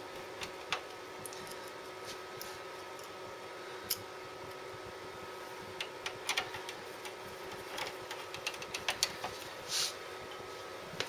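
Small clicks and taps of a screwdriver working the screws on a Xerox 700 copier's IBT belt cleaner, coming more often in the second half, over a faint steady hum.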